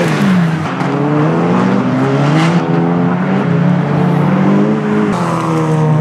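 Seat Leon touring-car engine running hard at high revs, its pitch climbing and dropping with the throttle and gear changes. About five seconds in, the sound switches abruptly to another car's engine, falling in pitch and then holding steady.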